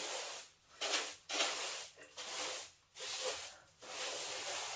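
Broom sweeping a floor strewn with straw: a run of about six brisk rustling strokes, one a little under every second.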